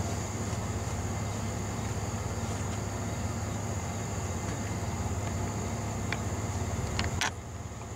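Crickets trilling steadily in a high, even whine over a low, steady engine hum. A few sharp clicks come near the end, and the hum then drops a little.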